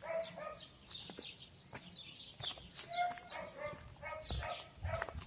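Short animal calls repeating every second or so, with brief higher chirps among them.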